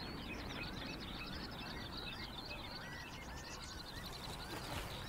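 Small birds chirping, many short quick calls sliding up and down, over a steady low background noise.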